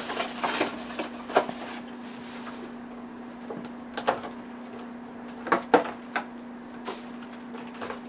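Cardboard and plastic packaging being handled as a new camera is unboxed: a scattering of short clicks, taps and rustles, loudest just past the middle, over a steady low hum.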